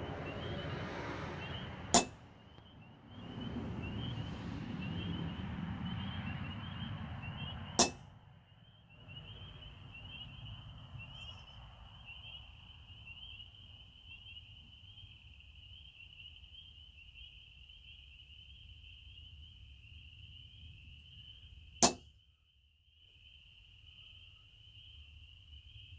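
Hammer striking a center punch to mark pin-hole locations in a steel knife blank: three single sharp metallic strikes, about two seconds in, about eight seconds in, and near the end.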